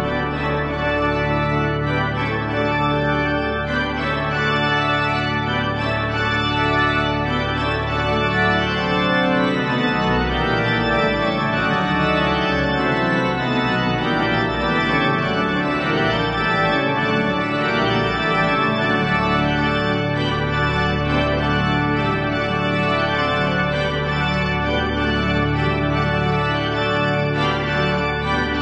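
Pipe organ playing a closing voluntary, many stops sounding together in sustained chords. The deepest bass notes drop out for about ten seconds midway and then return.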